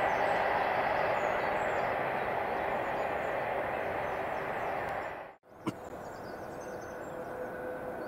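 Container freight train rolling past at a distance: a steady rushing rumble of wagons on the track. The sound cuts out abruptly for a split second about five seconds in, then comes back with a click.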